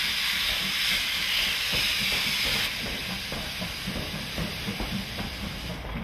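Steam locomotive letting off steam in a loud, steady hiss, which cuts back sharply just under three seconds in, leaving a rapid rhythmic clatter from the locomotive and train.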